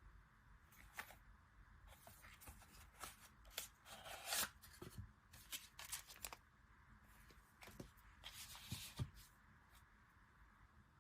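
Paper and plastic packaging rustling and crinkling as it is handled by hand, in short irregular bursts that are loudest about four seconds in and again near nine seconds.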